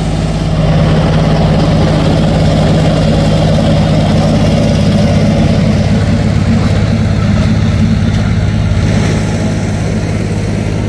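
Tractor engine running steadily while it pulls a ridge-forming, plastic-mulch-laying implement, a constant low engine note with a noisy rumble over it.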